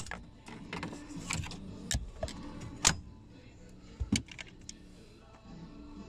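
Scattered sharp clicks and clinks of a screwdriver and plastic dashboard trim being handled, several separate knocks about a second apart, the loudest near the middle.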